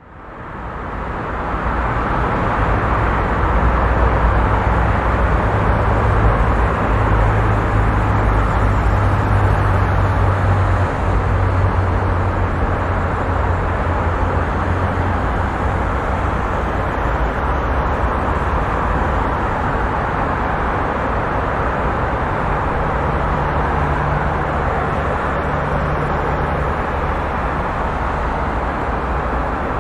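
Busy road traffic: a steady wash of car engine and tyre noise, with the low hum of passing vehicles, fading in over the first couple of seconds.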